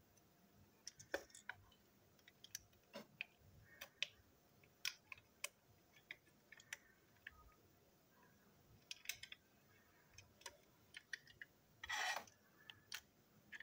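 Scattered faint clicks and light taps of small plastic parts as a toy steam locomotive is handled and fitted together, with a short, louder scrape about twelve seconds in as a screwdriver is picked up off the table.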